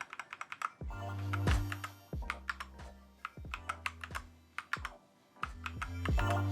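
Keys of an RK61 Plus compact mechanical keyboard being pressed in irregular clicks, over background music with held bass notes.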